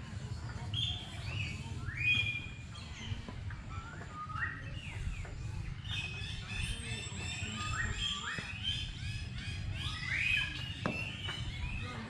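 Several small birds chirping and whistling in quick, overlapping notes, some of them falling in pitch, over a steady low rumble.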